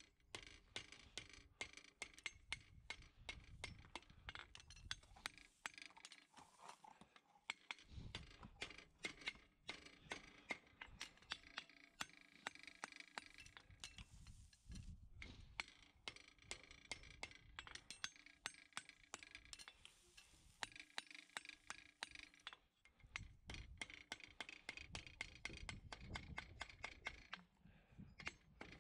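Farrier's hammer striking a hot steel horseshoe on an anvil: a fast run of metallic strikes with the anvil ringing, pausing briefly near the middle and again about two-thirds through as the shoe is turned.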